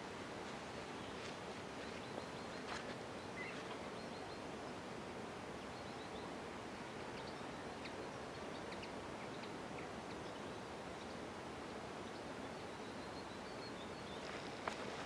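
Quiet outdoor ambience: a steady soft hiss with faint, scattered bird chirps.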